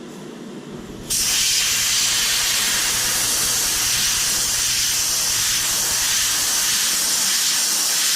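Compressed air from a Husky 30-gallon air compressor rushing out of an air hose nozzle as a loud, steady hiss that starts abruptly about a second in.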